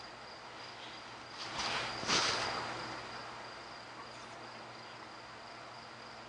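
Crickets trilling steadily in the background, with one brief rushing swell of noise about two seconds in that fades over about a second.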